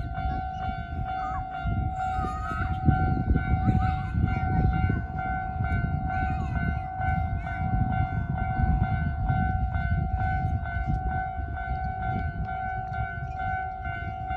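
Japanese railway level-crossing warning bell ringing, one tone repeating at an even, rapid rhythm, while a train runs past with a low rumble.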